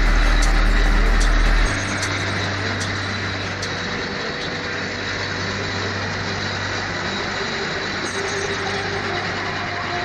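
Small mobile hot-mix asphalt drum mixer running, a steady mechanical din from its rotating drum and drive, with a few sharp clicks in the first few seconds. A heavy low rumble drops away suddenly just under two seconds in, and the machine noise then goes on steady and a little quieter.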